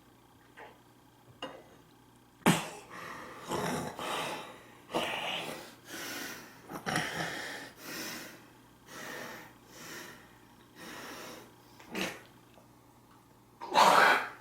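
A person making a series of short, breathy vocal sounds, about one a second, beginning with a sharp, loud one about two and a half seconds in and ending with another loud one at the very end.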